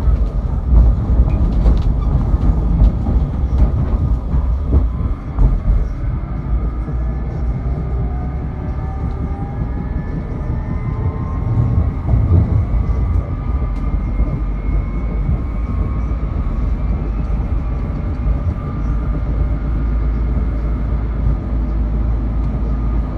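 Tram running on its rails with a steady low rumble. From about a third of the way in, a whine from its drive rises slowly in pitch as the tram picks up speed.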